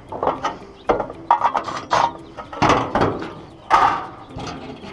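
A run of irregular knocks and clunks, about ten in all and loudest about two-thirds of the way through, as tools and fixture parts are handled in a steel lift basket.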